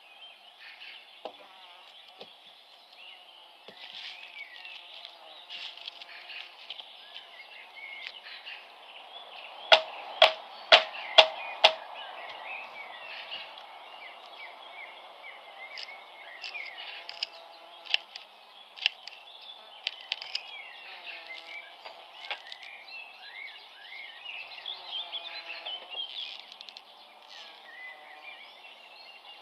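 Birds chirping and singing through the whole stretch over a faint outdoor background. About ten seconds in, five sharp knocks come in quick succession, about two a second, the loudest sounds heard.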